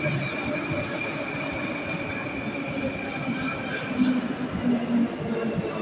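Moscow Metro 'Sokolniki' retro train, built on 81-717.5A cars, pulling into the station with a rumble and a steady high-pitched wheel squeal. About three and a half seconds in, the squeal shifts to a higher tone.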